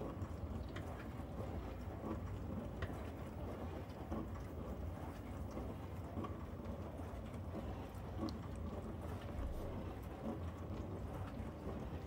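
Miele G 7310 SC dishwasher running its wash cycle: water spraying inside the tub over a steady low hum, with scattered light ticks.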